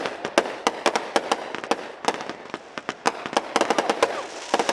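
Aerial display fireworks bursting in rapid, irregular succession: many sharp bangs, some overlapping.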